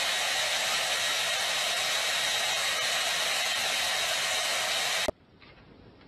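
Handheld hair dryer blowing with a steady, even rush of air, stopping suddenly about five seconds in.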